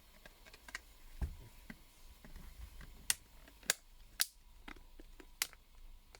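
Several sharp plastic clicks at uneven intervals, from the Honor 7S's back cover being pressed onto the frame as its retaining clips snap into place.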